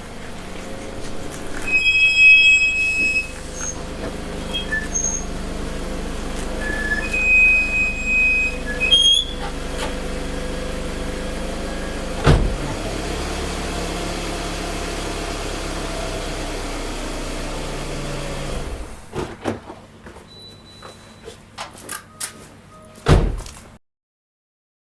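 Toyota Alphard's disc brakes squealing, two short high-pitched squeals about two seconds in and again about seven seconds in, over the steady running noise of the vehicle; the squeal comes from uneven pad contact surfaces. A single knock about halfway, then several clicks and knocks near the end before the sound cuts off.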